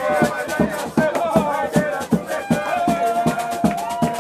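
Samba band playing live at close range: a steady drum beat of about three to four strikes a second with shakers, and voices singing over it, one holding a long note in the second half.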